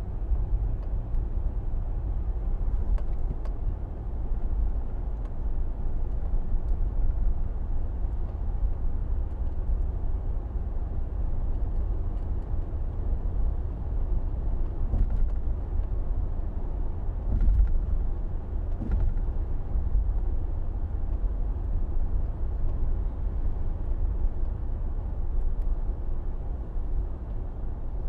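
SUV driving on a local street: a steady low engine and road rumble, with a few faint knocks a little past halfway.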